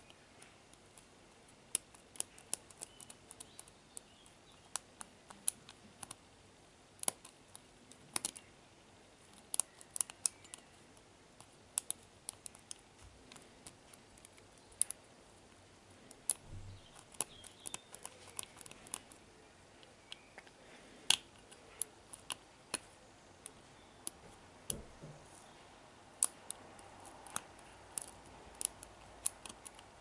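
Lock picking in an ERA discus padlock's 4-pin cylinder: a hook pick working the pin tumblers under tension. Many sharp little metallic clicks come at an irregular pace.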